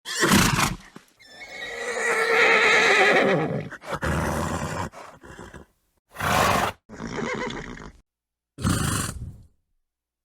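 A string of separate horse calls, cut one after another with dead silence between them: a short call at the start, then a long neigh of about two and a half seconds, followed by several shorter calls.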